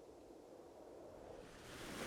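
Faint, even rushing noise that swells louder near the end.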